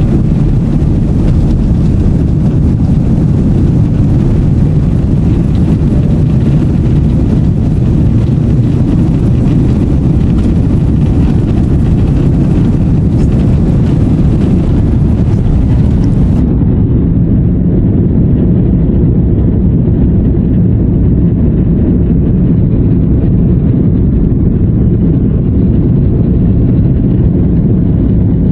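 Loud, steady low rumble of a jet airliner heard from inside the cabin, engine and airflow noise without any breaks. About two-thirds of the way through it turns duller, losing its high end, while the rumble carries on.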